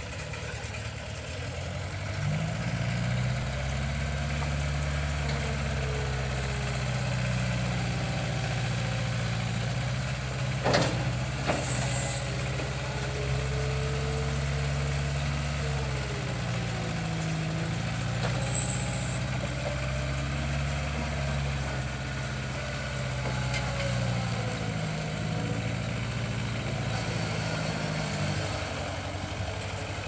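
New Holland LX565 skid steer loader's diesel engine running steadily as the machine drives and raises its loader arms. Two brief high-pitched squeaks, a little before and a little after halfway, are the loudest moments.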